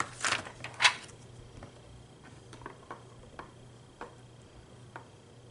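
Small makeup items being handled: two brief clatters about a second in, then scattered light clicks and taps.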